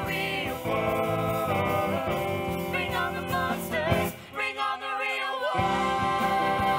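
Live pit band of keyboards, guitar, bass, strings, reeds and drums playing a rock musical theatre number, with the cast singing held notes over it. About four seconds in, the bass and drums drop out for a moment, then the full band comes back in.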